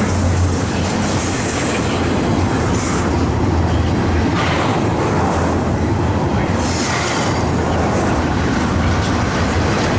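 Train cars rolling past slowly on the rails: a steady, loud rumble and rattle of wheels on track.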